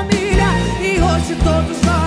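Live band playing a worship song: drums, bass, electric guitars and keyboard, with a wavering melody line above them.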